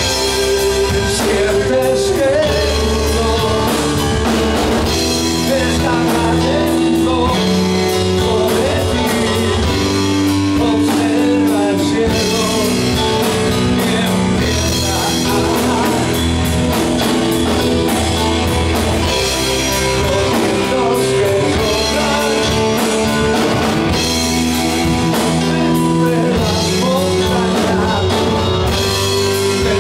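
Live prog rock band playing: a singing voice over Yamaha Motif synthesizer keyboard, electric guitar and drum kit.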